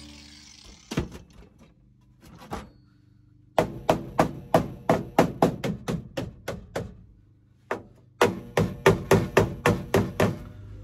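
Hand hammer striking the old rusted steel rocker panel of a car body, each blow ringing briefly. Two single blows come first, then two quick runs of about ten blows each.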